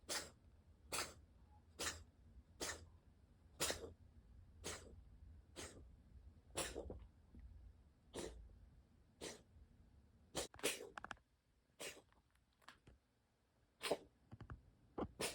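Munchkin kitten reverse sneezing: a run of short, sharp noisy breaths through the nose about once a second, turning sparser and irregular in the last few seconds.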